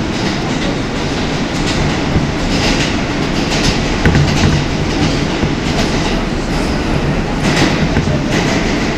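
R160 subway car running at speed through a tunnel, heard from inside the car: a steady rumble with irregular sharp clacks of the wheels over rail joints.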